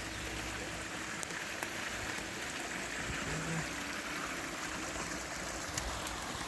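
Mountain stream running down the slope: a steady rush of flowing water.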